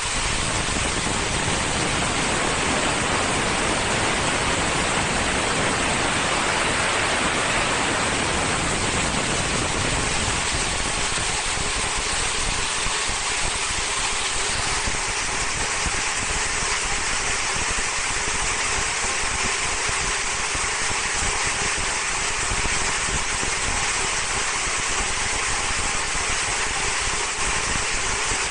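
Film slitting and rewinding machine running: a steady rushing hiss of clear plastic film winding onto the rewind rolls, with a faint high steady whine joining about halfway through.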